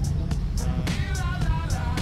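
Background music with a steady beat and heavy bass; a wavering melody line comes in about a second in.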